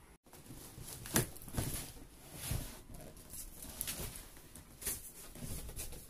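Irregular knocks, scrapes and rustling from handling a cardboard box and its packing while a small top-loading washing machine is worked out of it.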